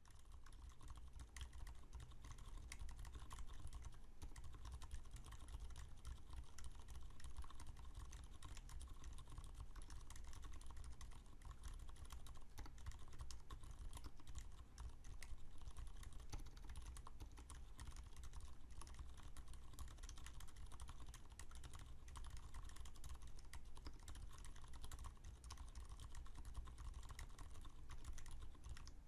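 Continuous fast typing on a custom mechanical keyboard fitted with lubed Cherry MX Silent Red linear switches, an FR-4 plate and GMK keycaps. It is a quiet, dense run of soft, damped keystroke clicks.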